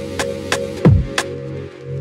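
Drum and bass music: a deep kick drum that drops in pitch about a second in and sharp snare and hi-hat hits over held bass notes and chords.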